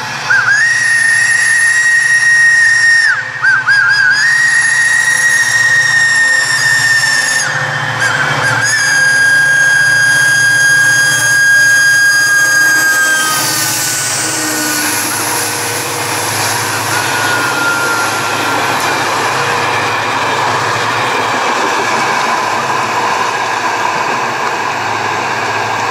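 Diesel locomotive's air horn sounding three long blasts, the last a little lower in pitch. The horn is followed by the rumble and wheel noise of the train passing close by.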